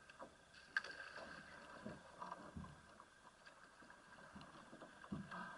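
Faint water sounds around a polo kayak drifting on calm water: a few small splashes, with a light knock about a second in.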